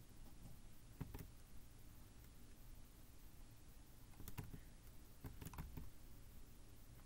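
Faint, scattered clicks from a computer mouse and keys over quiet room tone: one about a second in, then a small cluster a little past the middle.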